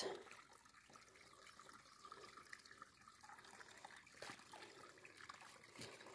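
Faint trickling of a small muddy woodland stream, with a few light drips.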